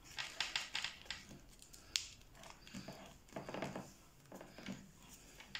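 A small folded sheet of paper rustling and scraping between the fingers as origami corners are tucked into the paper's pockets and pressed down: a string of short, crisp rustles with a sharp tick about two seconds in.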